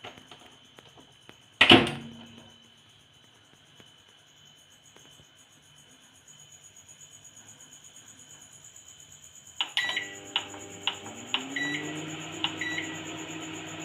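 Microwave oven: the door shuts with one loud knock, then several seconds later come keypad clicks and short beeps, and the oven starts running with a hum that rises in pitch and settles into a steady drone.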